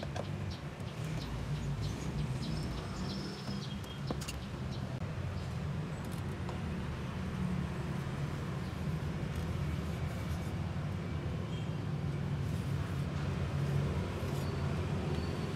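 Steady low hum, with faint clicks and short squeaks of metal being handled as a screwdriver works the fuel pump's metal retaining bracket loose, mostly in the first few seconds.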